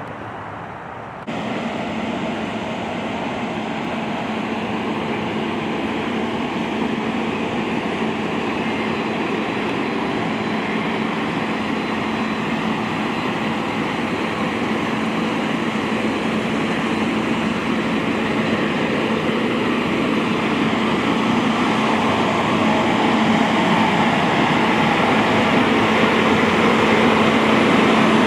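Steady drone of fireground machinery running continuously, with a constant low hum, growing slowly louder.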